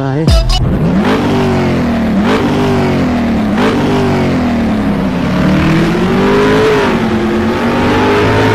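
An engine revving, as an intro sound effect: several quick blips of the throttle, each rising and falling in pitch, then a longer, slower climb and drop.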